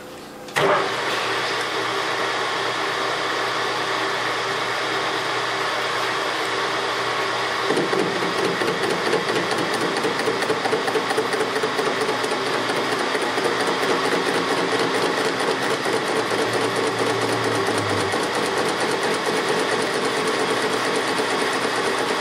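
Metal lathe starting up about half a second in and running, with a BMW motorcycle connecting rod spinning in its chuck. About eight seconds in, a rapid regular flutter joins as the tool begins a light cut of about ten thousandths on the rod.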